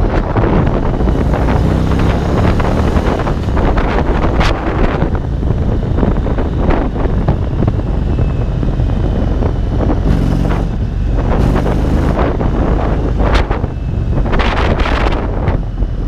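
Indian cruiser's V-twin engine running on the road, mostly covered by heavy wind noise on the microphone. The engine note shows through a little more around two seconds in and again past the middle.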